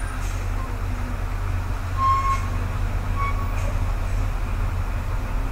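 Steady low rumble, with a couple of faint short tones about two and three seconds in.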